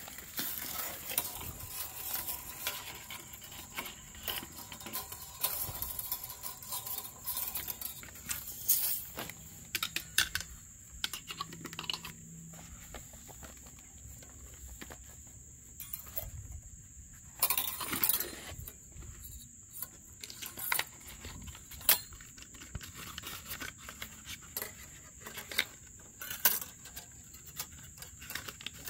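Irregular clicks, taps and light scraping of small hard objects being handled, with a few louder knocks, over a faint steady high-pitched whine.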